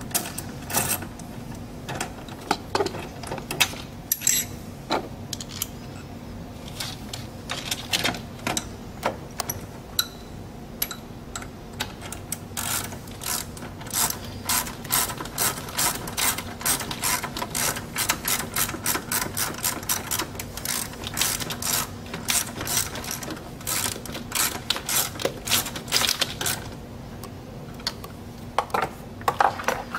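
Hand ratchet wrench clicking in quick runs of strokes as a mounting bolt is turned. A faint steady hum runs underneath.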